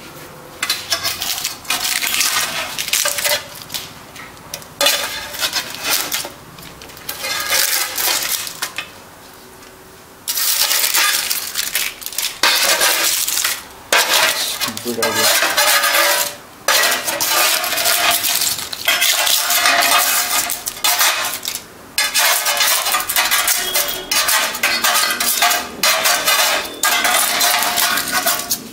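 A utensil scraping and clinking against an oven tray in repeated spells with short pauses, working burnt, stuck-on cabbage off the hot tray.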